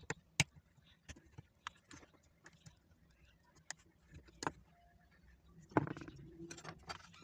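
Faint, scattered clicks and light taps, with a denser cluster of knocks about six seconds in.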